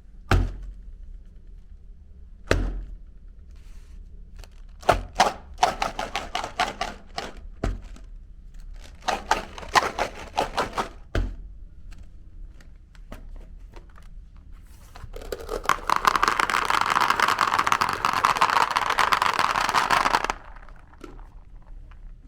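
Meat grinder crushing chocolate candy. First come a few dull thumps and bursts of rapid cracking and clicking. In the second half there are about five seconds of dense, steady grinding that stops suddenly.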